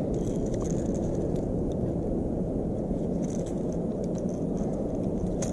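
Wind rumbling steadily on the microphone, with a few faint, sharp ticks.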